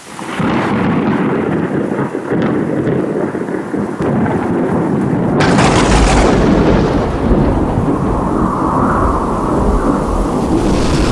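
Thunderstorm sound effect: steady heavy rain, with a sudden crack of thunder about five seconds in that rolls on into a long low rumble.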